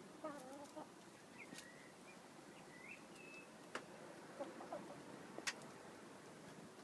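Chickens clucking softly: scattered short, wavering calls with a few higher whistled notes, and a couple of sharp clicks.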